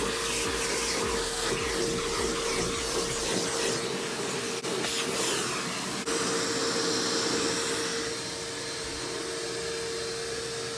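Vacuum cleaner running steadily, its hose nozzle sucking dirt off a truck's floor carpet: a continuous rush of air with a constant hum. About eight seconds in it gets a little quieter and thinner as the nozzle moves.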